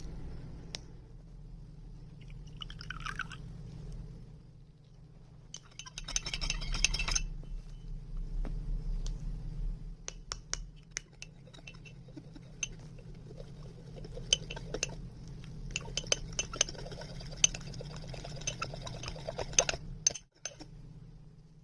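Ingredients poured into a mug, then a spoon repeatedly clinking against the mug while stirring cake batter, over a steady low hum.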